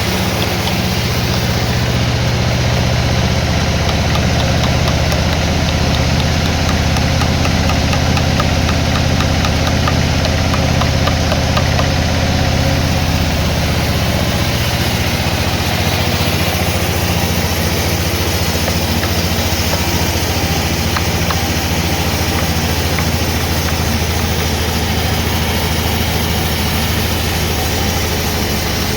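An engine running steadily at constant speed, its pitch shifting slightly about halfway through.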